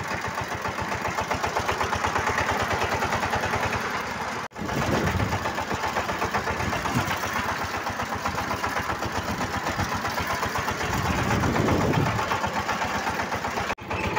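Changfa single-cylinder diesel engine of a bhutbhuti motor van running under way with a rapid, even chugging. The sound drops out for an instant about four and a half seconds in and again near the end.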